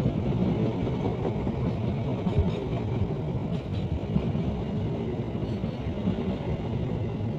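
KAI CC206 diesel-electric locomotive running under power, a steady low rumble.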